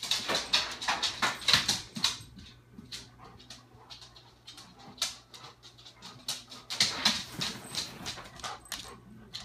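Dog barking in two bursts of rapid, harsh barks, one right at the start lasting about two seconds and another about seven seconds in.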